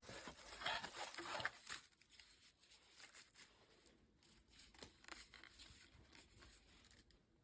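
Faint rustling and handling noises with scattered small clicks, loudest in the first two seconds, then fainter.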